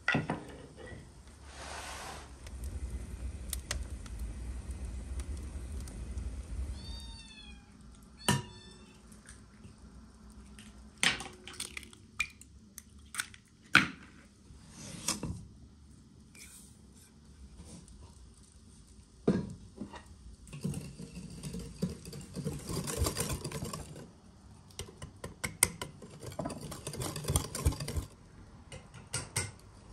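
A cat meowing briefly about seven seconds in, over scattered knocks, clicks and scraping from utensils and dishes being handled.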